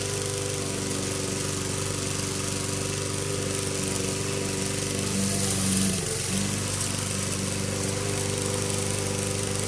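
Troy-Bilt self-propelled lawn mower's single-cylinder engine running steadily, its pitch dipping briefly about six seconds in.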